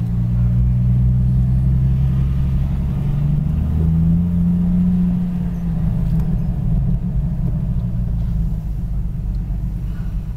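Off-road vehicle's engine and drivetrain rumbling at low speed, heard from inside the cab. The engine note rises a little about four seconds in, then settles into a rougher, uneven rumble.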